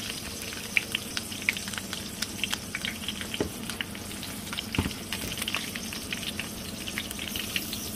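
Spice-marinated fish frying in hot oil in a pan with garlic and curry leaves: a steady sizzle with many small crackles and pops.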